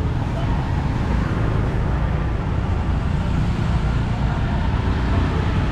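Busy street ambience: a steady rumble of motor traffic with faint voices in the background.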